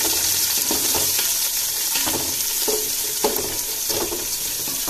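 Sliced onions and dried red Byadagi chillies sizzling in hot oil and ghee in a steel pot, with a wooden spatula scraping and stirring across the metal bottom in repeated short strokes. This is the onion-frying stage of a tempering.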